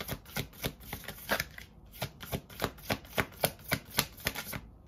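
Tarot cards being shuffled by hand: a quick, uneven patter of card clicks, about four a second, that stops shortly before the end.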